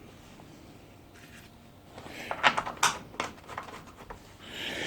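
Sharp metallic clicks and taps of bolts and barbecue frame parts being handled and fitted, a cluster of ticks about two seconds in, then a short rustle near the end.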